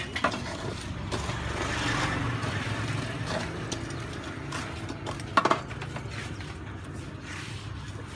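Metal tongs scraping and clinking against a wire grill and the charcoal beneath it, with one sharp metallic clank about five seconds in, over a steady low hum of street traffic.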